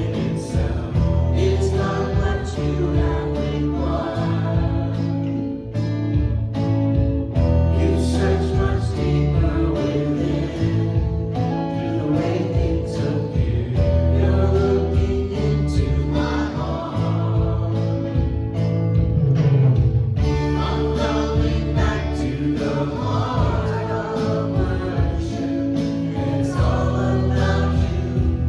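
Contemporary worship song: several voices singing over a live band, with a regular beat.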